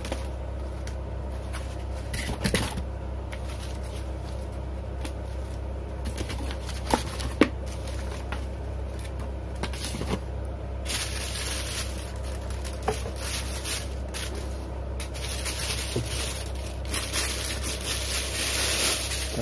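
Clear plastic packaging bag crinkling and rustling as a small audio mixer is handled and slid out of it, loudest in the second half, with a few sharp taps earlier on. A steady low hum runs underneath.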